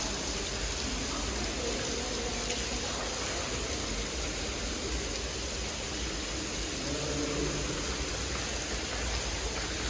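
Steady, even hiss of the Rain Room installation's artificial rain pouring down from the ceiling onto the floor.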